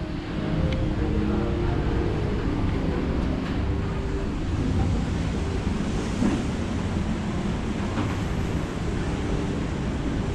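Steady low rumble of open-air city ambience: wind on the microphone over distant traffic, with a steady machine hum in the first couple of seconds.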